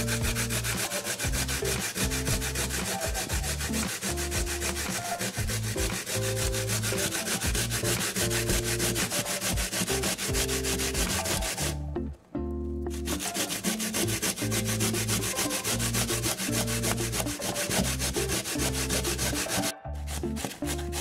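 Raw potato being grated on a plastic box grater: fast, continuous rasping strokes. They stop briefly about twelve seconds in and again near the end.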